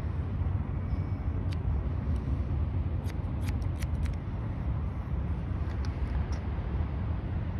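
Barber's scissors snipping hair over a plastic comb: a quick run of snips about three to four seconds in, with single snips before and after, over a steady low rumble.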